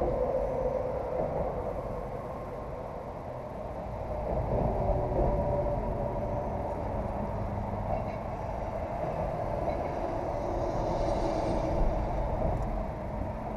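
Steady rumble of traffic crossing a concrete highway bridge, swelling and easing as vehicles pass.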